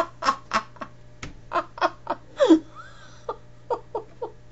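A person laughing in a run of short, choppy bursts, a few per second, some falling in pitch, easing off toward the end.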